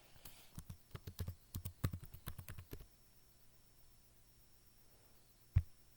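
A quick, irregular run of about a dozen light clicks or taps over the first three seconds, then one sharper single click near the end.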